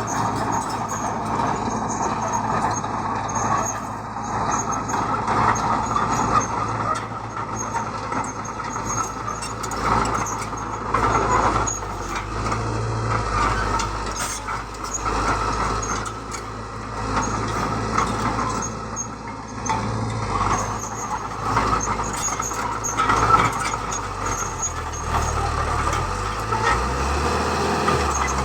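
Heavy diesel construction machinery running steadily, with engine hum and a rising and falling mechanical clatter.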